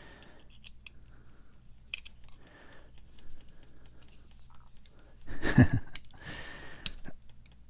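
Light metal clicks and small scrapes of hand tools working a Schlage padlock cylinder, scattered and quiet, with a short muttered sound and a breath a bit past halfway.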